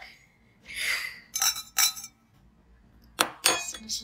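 Sharp clinks and taps on a glass cup, in two short clusters about a second and a half in and just past three seconds, without a lasting ring. A soft breathy rush comes just before the first cluster.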